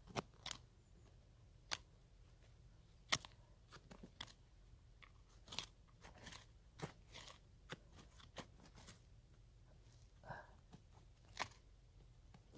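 Irregular, scattered crunches and scrapes of gloved hands digging in dry soil, grass and dead leaves to free a wild bellflower (doraji) root.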